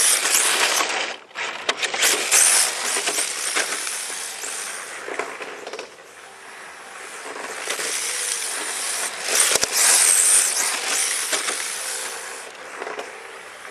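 HPI Sprint 2 RC drift car with a brushless motor, its drivetrain whirring and its drift tyres scrubbing and sliding on asphalt. It is loud as the car passes close at the start and again about 8 to 10 seconds in, and fades as it runs off near the end.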